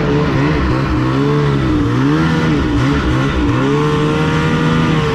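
Snowmobile engine revving, its pitch rising and falling about three times and then holding high near the end.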